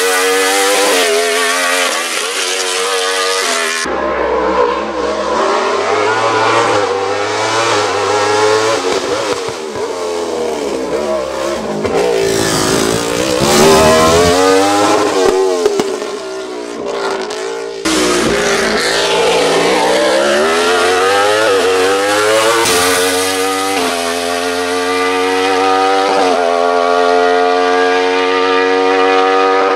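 Wolf Thunder GB08 sports-prototype race car driven hard uphill. Its engine revs high through the gears, the pitch climbing and dropping back at each shift. Near the middle it falls away as the car slows for a bend, then rises again under acceleration.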